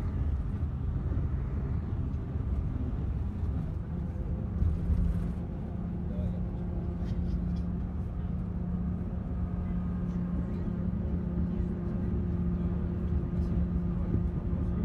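Engine and road noise heard inside a moving vehicle: a constant low rumble, joined about four seconds in by a steady engine hum at even speed.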